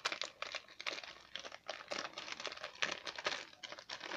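Plastic packaging crinkling and rustling in quick irregular crackles as a figure's base is taken out of its wrapping.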